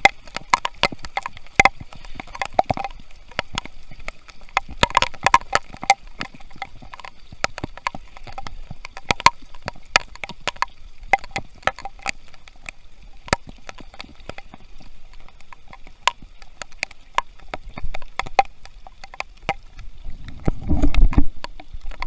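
Rain falling close to the microphone: an irregular patter of sharp drop ticks. A louder low rumble comes near the end.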